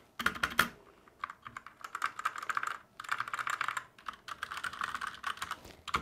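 Typing on a Newmen GM610 60% mechanical gaming keyboard fitted with new keycaps: quick runs of key clicks in several bursts with short pauses between, typed to check that the keyboard still works after the keycap swap.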